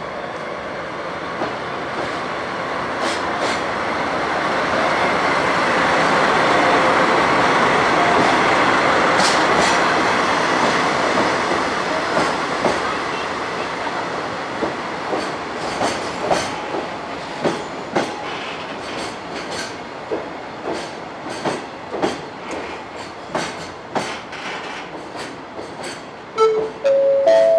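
Container train hauled by a DD51 diesel locomotive rolling past, building to a peak, then its wagons' wheels clacking irregularly over the rail joints. Near the end, a short run of chime notes rises step by step, the station's chime before an arrival announcement.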